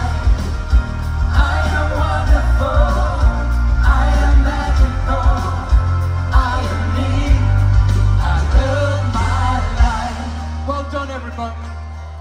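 Live pop ballad played loud over a festival PA and heard from the crowd, with heavy bass and singing. About ten seconds in the deepest bass drops out and the music gets quieter, leaving a held low note.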